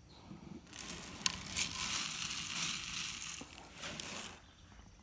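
Rustling, crackling noise with a couple of sharp clicks, building up about a second in and dying away near the end.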